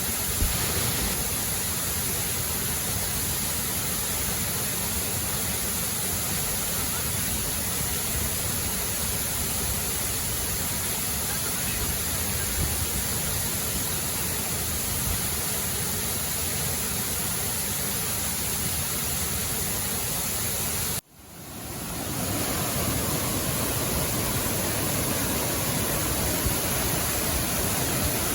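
Steady rush of falling water from a waterfall. The sound drops out abruptly about three-quarters of the way through, then fades back up within a second or two.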